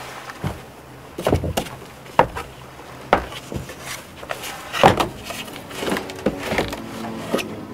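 A series of irregular wooden knocks and thumps, about a dozen, uneven in spacing and strength. Quiet music comes in near the end.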